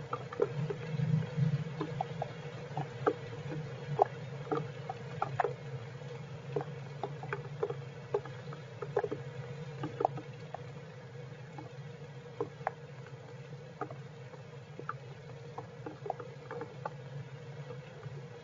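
Heavy rain pattering on the squirrels' shelter: irregular sharp drip taps a few times a second over a faint hiss, with a steady low hum underneath.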